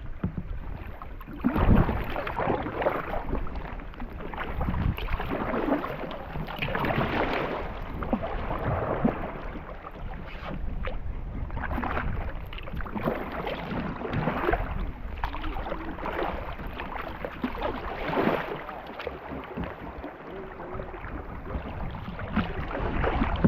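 Kayak paddle dipping and splashing through river water, stroke after stroke, with a surge of water sound every second or two.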